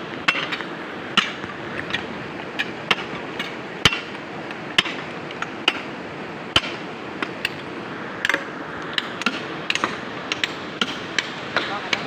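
Hammers and chisels striking rock: irregular, sharp clinks and knocks from several workers breaking up boulders, two or three strikes a second at times, over a steady rush of river water.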